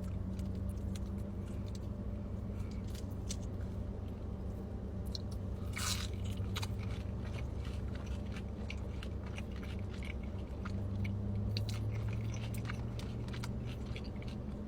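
Crunching and chewing of a breaded mozzarella stick: a run of crisp crunches and chewing clicks, with one louder crunch about six seconds in, over a steady low hum.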